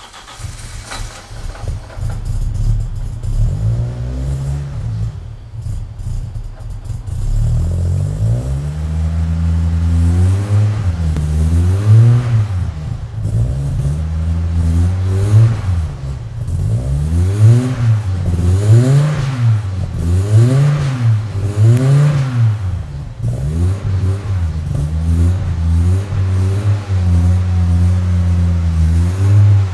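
Volvo 740 Turbo's turbocharged four-cylinder engine running through a new stainless steel twin-silencer exhaust. It idles, then the throttle is blipped repeatedly, about one rev a second, through the middle, before it settles back to idle.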